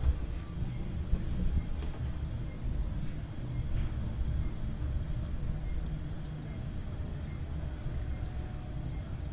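An insect chirping: a high, thin pulse repeated evenly several times a second, over a steady low background rumble.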